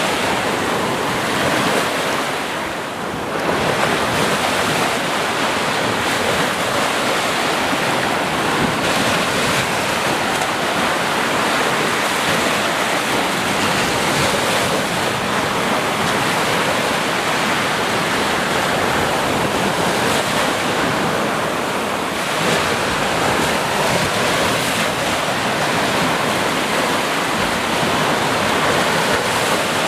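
Ocean surf: a steady wash of waves breaking and rolling in, with slow swells in level and a brief lull about three seconds in.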